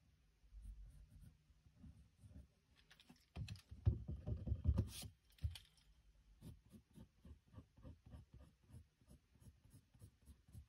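Pencil drawing on sketchbook paper: short, scratchy strokes in quick succession. About halfway through there is a louder stretch of rustling and knocking as the sketchbook is handled.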